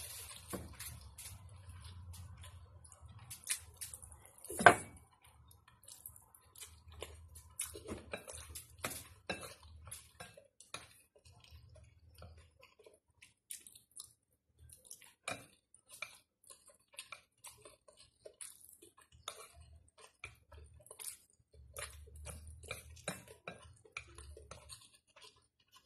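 Chopsticks clicking and scraping against a ceramic bowl of noodles, with chewing in between. Many small, irregular clicks, with one louder knock about four and a half seconds in.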